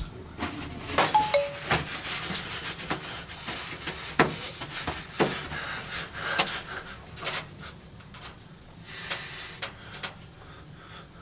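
Irregular knocks and clicks of small objects being handled, loudest in the first few seconds. A couple of short beeps sound about a second in. The knocks thin out toward the end.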